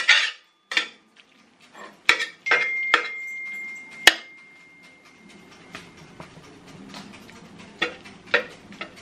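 Metal slotted spatula scraping and clinking against a stainless steel frying pan as ground beef is broken up and stirred. The strikes come irregularly, thickest in the first few seconds and again near the end, and one leaves a steady high ring for a few seconds.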